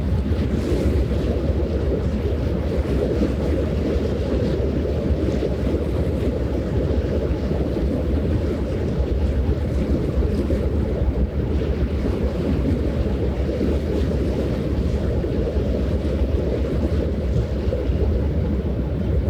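Steady low rumble of wind buffeting the microphone and water along the shore, unchanging, with no distinct events.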